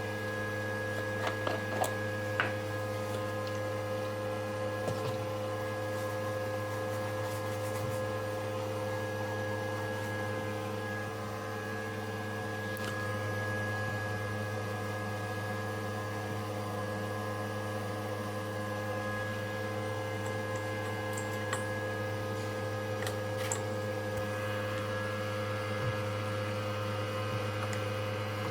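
Small CNC router milling a printed circuit board: a steady hum and whine from its spindle and stepper motors, with a few faint clicks.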